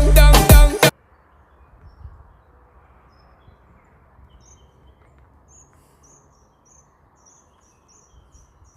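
A dancehall music track cuts off abruptly about a second in, leaving faint outdoor ambience: a low background hiss with scattered high chirps. Near the end a run of short, high chirps repeats about three times a second, from a bird or insect.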